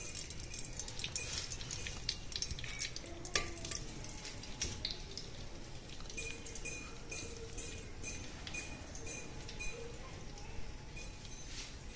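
Desi ghee dripping into a clay cooking pot over a gas flame, with faint, irregular crackles and ticks as it heats.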